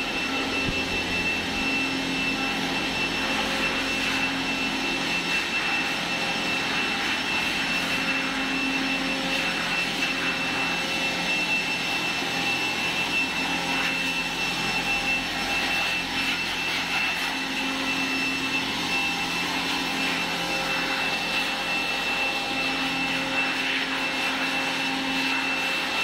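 Handheld electric blower running steadily, a rushing of air with a constant high whine, as it blows dry litter and dust off a concrete floor ahead of washing.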